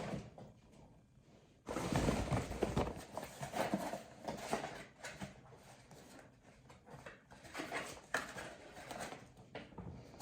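Rustling and knocking of products and packaging being handled, starting suddenly about a second and a half in and loudest just after it begins, with scattered clicks and crackles.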